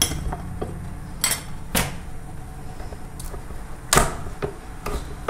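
Hard lobster shell knocking and cracking against a wooden cutting board while the lobster's parts are handled and twisted apart: several sharp knocks, the loudest about four seconds in.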